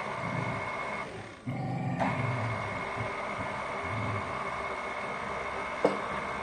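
KitchenAid stand mixer running on its lowest speed, a steady motor whine with the beater churning thick batter. It drops out briefly a little after a second in, then runs on, with a sharp click near the end.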